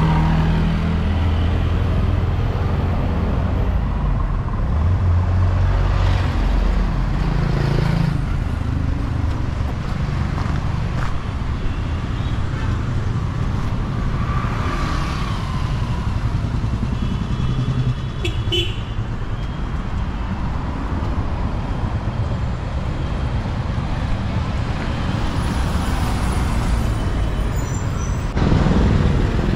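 Street traffic: motor vehicles running past with a steady low rumble, beginning with a CNG auto-rickshaw's engine close by. A short, high horn beep sounds a little past the middle.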